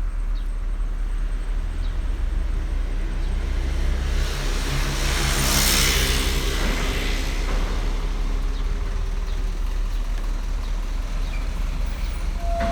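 Road traffic: a motor vehicle passes about five seconds in, its engine note and tyre hiss swelling and then fading, over a steady low rumble.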